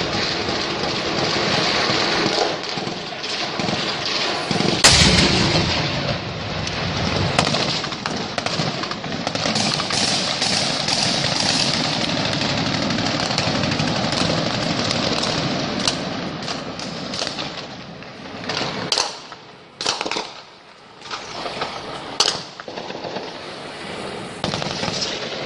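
Heavy gunfire, automatic weapons and single shots over a constant rumbling noise, with one loud bang about five seconds in. Near the end the firing thins out to a few separate shots.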